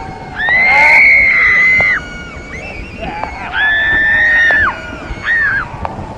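High-pitched screams, part of a horror sound effect: two long held shrieks and a short one near the end, with an echo trailing after each.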